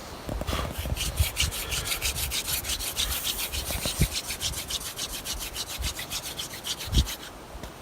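Wooden hand-drill spindle spun back and forth between the palms in the notch of a wooden hearth board, a fast, even rasping of about six or seven strokes a second that stops near the end: friction drilling to build heat for an ember.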